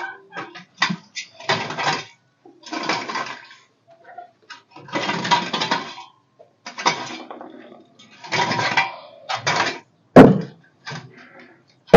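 A series of short scraping, clattering strokes, one every second or so, then a single loud knock about ten seconds in.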